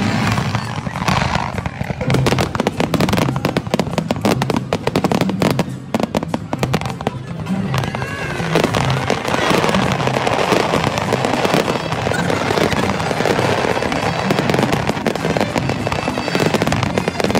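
Large fireworks display: rapid bangs and crackling, densest from about two to eight seconds in, with music playing underneath.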